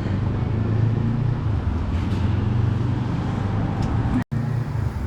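Steady low rumble of city street traffic, cutting out for an instant about four seconds in.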